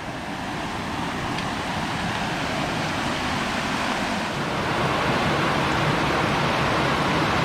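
Rushing river water: a steady wash of flowing water over rocks, growing a little louder about two-thirds of the way through.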